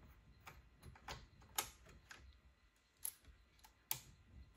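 Faint, irregular small clicks and taps as the hotend nozzle is slid into the Bambu Lab A1 extruder head and seated by hand, the sharpest clicks about one and a half, three and four seconds in.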